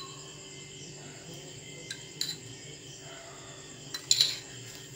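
A metal spoon tapping and clinking against a glass mixing bowl as spoonfuls of flour are tipped in: a couple of short clinks about two seconds in and a quick cluster near the end, over a faint steady high whine.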